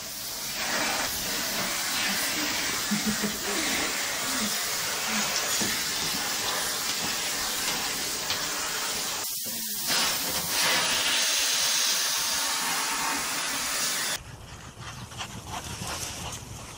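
Canister vacuum cleaner running with a steady hiss of suction as its floor nozzle is drawn over a dog's coat. The noise cuts off suddenly about two seconds before the end.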